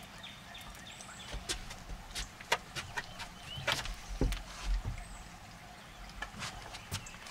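Scattered, irregular clicks and light knocks from rod, reel and boat handling during the fight with a hooked striper, over a steady low rumble.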